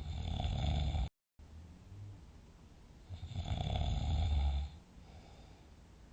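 Deep snoring during sleep: a loud snore that cuts off abruptly about a second in, quieter breathing, then a second loud snore from about three seconds in to nearly five, followed by quiet breathing.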